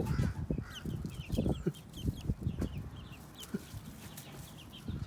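Young chickens peeping: a steady run of short, high, falling chirps from several birds, with some low knocks and rustling in the first half.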